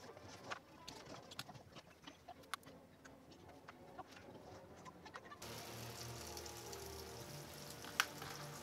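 Hand-stitching leather: small clicks and rustles as needle and thread are pulled through the punched holes and the leather is handled. About five seconds in, the background changes abruptly to a steadier hiss with faint low tones, and there is one sharp click near the end.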